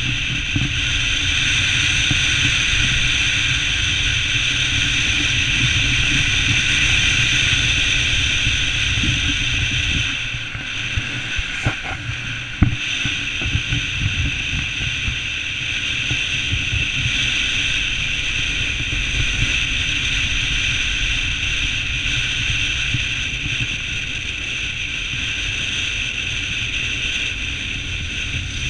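A car driving on a gravel road, heard from a camera mounted outside on the bonnet: steady wind rushing over the microphone over a low rumble of tyres on gravel. A few sharp knocks come about twelve seconds in.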